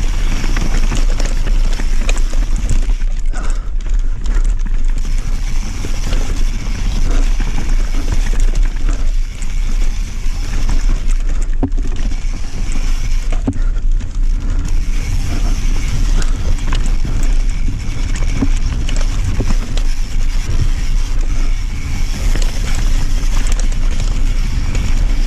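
Enduro mountain bike riding fast downhill over rough dirt and rock: steady wind rush and rumble on the microphone, with tyre noise and the rattle of the bike over the ground.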